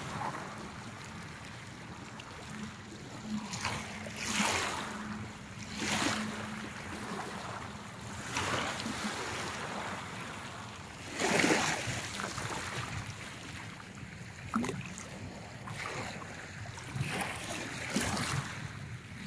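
Small sea waves washing in over a pebble shore, with a splash every few seconds as someone wades through the shallow water.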